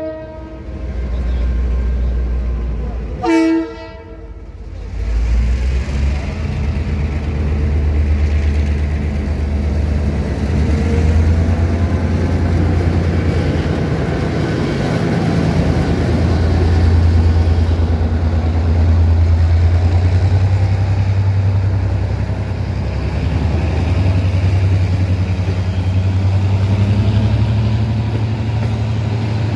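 A train horn sounds briefly about three seconds in. After a short lull, the low, steady rumble of a diesel train's engine and running gear takes over, swelling and easing.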